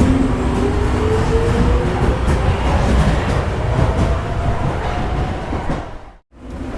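Subway train pulling out: a heavy low rumble of wheels on track with a motor whine that rises slowly in pitch as the train accelerates. The sound drops out sharply about six seconds in, then comes back.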